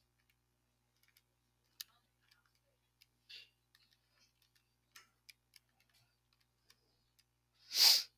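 Scattered soft clicks of calculator keys being pressed one at a time, irregularly spaced. Near the end comes a louder short burst of hiss.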